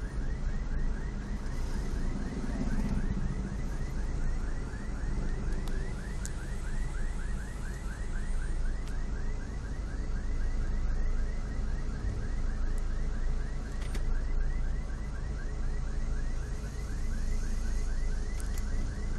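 Car alarm siren going off while the car is being driven, a rapid string of rising sweeps repeating several times a second without a break. It runs over the steady low hum of the moving car.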